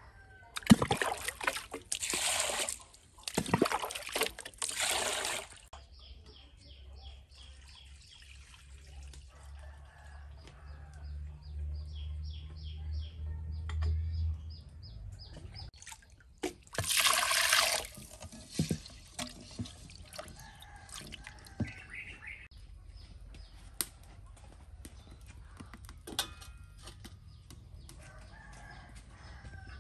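Water poured and sloshed in a metal basin while food is washed: several splashes in the first five seconds and another about seventeen seconds in. Scattered clinks of metal bowls and pans follow.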